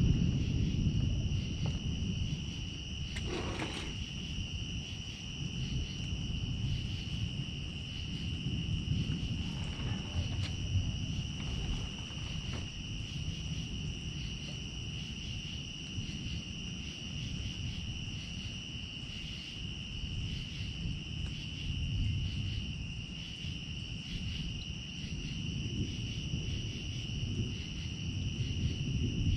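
Night insect chorus of crickets, a steady unbroken high trill, over a continuous low rumbling noise.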